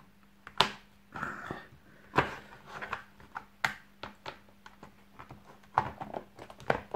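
Plastic case of a mains surge protector strip being pressed shut and handled: a string of separate sharp clicks and knocks, with a brief rubbing sound about a second in.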